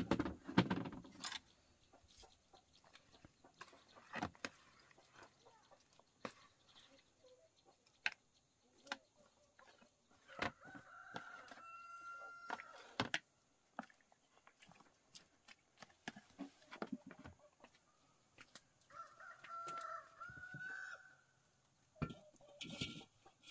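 A rooster crowing twice, each crow a long held call of about two seconds, over scattered light clicks and knocks from bowls and chopsticks being handled.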